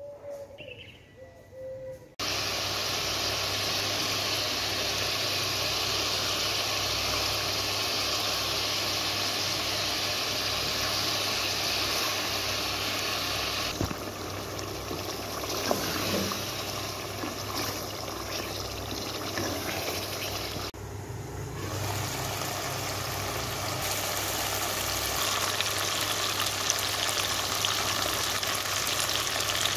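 Chicken karahi sizzling and bubbling in the pan, a loud steady hiss of frying that starts suddenly about two seconds in.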